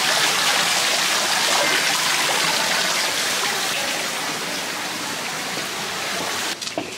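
Steady rushing water of a mountain stream, cutting off suddenly near the end.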